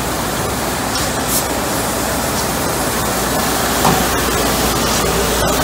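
Timesaver 237-1MW 37-inch wide-belt dry sander running, with a steel strip passing through on its feed conveyor: a loud, steady rushing noise, with a short knock about four seconds in.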